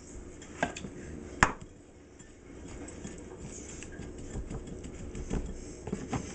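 Two sharp knocks of the glass spice shaker, the second and louder about a second and a half in, then fingers stirring lemon pepper into the dry breading in a bowl, with small clicks and scrapes against the bowl.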